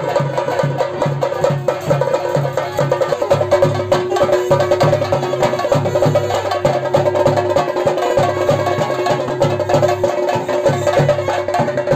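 Theyyam ritual music: chenda drums beating a quick, even rhythm, about four strokes a second, with clashing hand cymbals, over a steady held drone.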